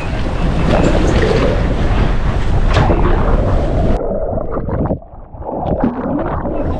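Wind buffeting the microphone and water splashing alongside the boat. About four seconds in, the sound turns suddenly muffled and dull, with gurgling and bubbling, as water sounds do when heard with the microphone under the surface.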